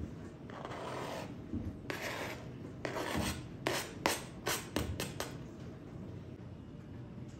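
Knife blade scraping chopped dill off a plastic cutting board into a glass bowl. Three longer scrapes come first, then about halfway through a quick run of short scraping strokes.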